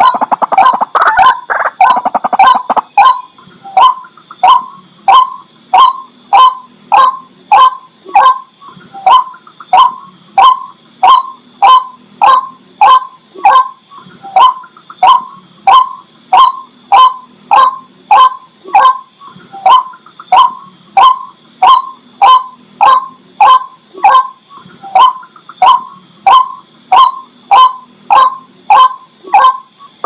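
White-breasted waterhen calling: a dense run of overlapping calls for the first few seconds, then a loud, harsh call repeated very evenly, about three times every two seconds.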